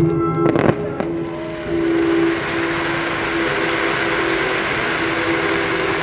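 Fireworks and pyrotechnics going off: a quick cluster of sharp bangs under a second in, then a steady crackling hiss from about two seconds on, over a steady low tone.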